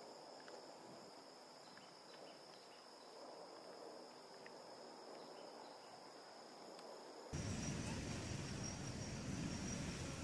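Outdoor ambience with a steady, high-pitched insect drone over a faint hiss. About seven seconds in the background becomes louder, with much more low-pitched noise, while the insect tone carries on.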